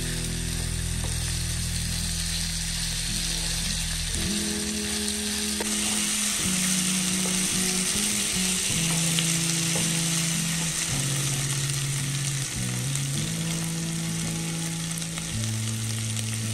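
Food frying in hot oil in a pan, a steady sizzle.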